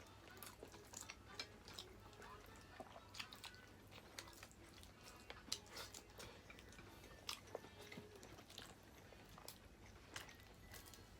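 Quiet close-up eating of seafood: chewing with irregular small crunches and clicks.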